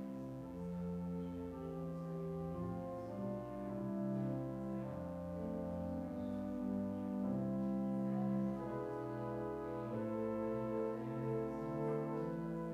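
Church organ playing slow, sustained chords, with some held notes pulsing gently.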